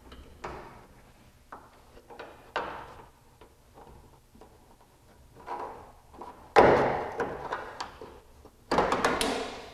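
Mustang drip rail molding being peeled off the roof gutter by hand, snapping and clanking free of its rail in a series of sharp knocks, each ringing briefly. Two much louder clanks come in the last three seconds as the last of the molding comes away.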